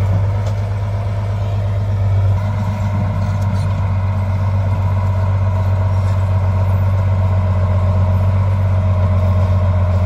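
Komatsu D50A-17 crawler bulldozer's diesel engine running steadily under load while the blade pushes earth and rock, a deep, even drone.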